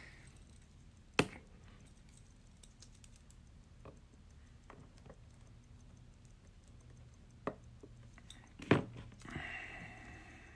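A few isolated small clicks and taps of fine watchmaker's tools on a wristwatch movement as its screws are taken out, the loudest a little under nine seconds in, followed by a brief higher sound.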